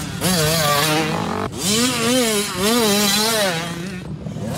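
Dirt bike engines revving as the riders work the throttle through deep ruts, the pitch rising and falling again and again.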